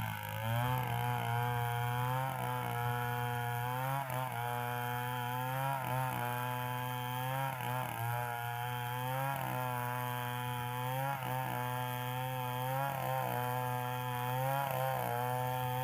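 Power tool motor running steadily, its pitch dipping briefly and recovering every second or two as it takes load in the wood.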